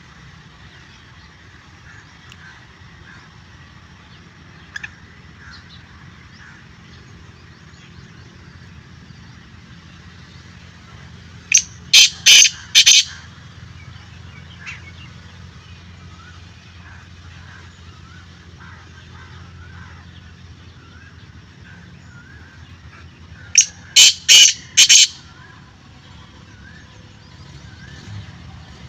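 Black francolin calling twice, about twelve seconds apart. Each call is a quick run of four or five loud, harsh notes, over faint background chirping.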